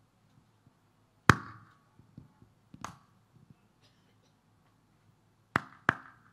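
Sharp single clicks made by hand close to the ear, as in a hearing test of an ear being checked after years of deafness with the other ear held shut: one loud click about a second in, another near three seconds, then two in quick succession near the end.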